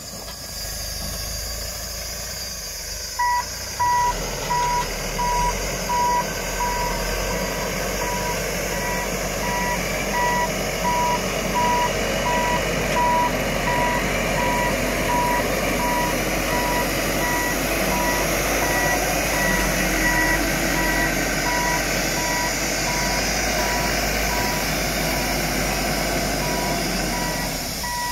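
MACAO compact wheel loader's engine running, with its reversing alarm beeping steadily at about two beeps a second from a few seconds in: the loader is backing up.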